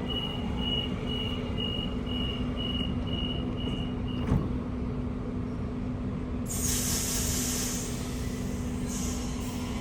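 Electric suburban train standing at the platform: high door-closing warning beeps, about two a second for four seconds, then a thud as the doors shut. Two bursts of air hiss follow over the train's steady hum.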